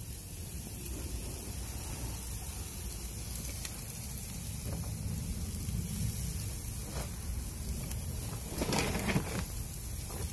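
Skewers of shrimp, meat and vegetables sizzling on a hot grill: a steady hiss over a low rush, with a few brief knocks about nine seconds in.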